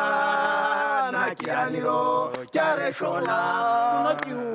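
A small group of men singing a cappella in harmony, holding long chords in short phrases, with a few hand claps between the phrases.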